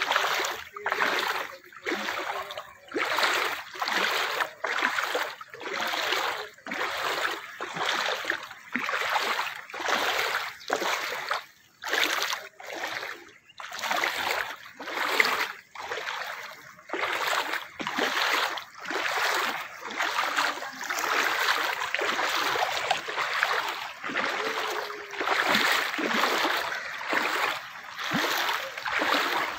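Rhythmic splashing and sloshing, about one splash a second, of someone wading step by step through floodwater.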